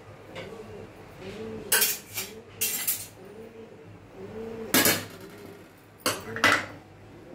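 Stainless steel bowl knocking and scraping against a gas stove's metal pan support, several separate metal clanks and scrapes.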